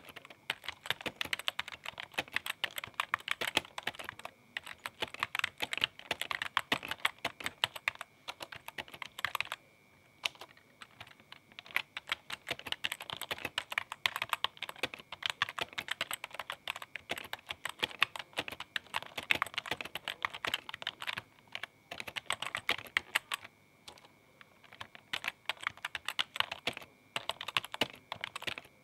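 Typing on a computer keyboard: fast runs of key clicks, broken by a few brief pauses.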